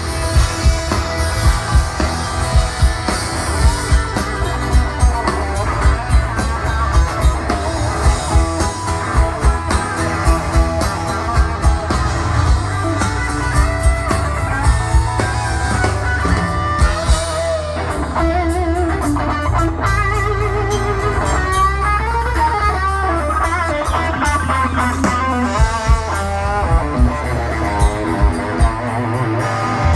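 Live rock band playing an instrumental passage: electric lead guitar with bent, wavering notes, over bass and a steady drum beat.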